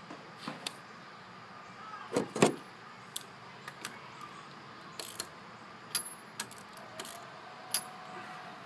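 Scattered metallic clicks and clinks of hands and tools working on the 1987 Yamaha Exciter 570 snowmobile's engine parts, with a louder double knock about two seconds in.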